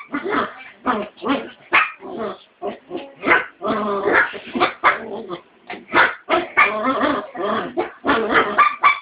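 Two dogs play-fighting, barking and yipping in quick, irregular bursts of about two or three a second.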